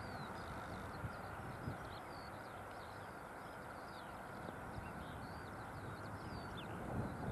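Small songbirds singing with many quick high chirps, over wind rumbling on the microphone and the faint steady sound of a distant train moving away.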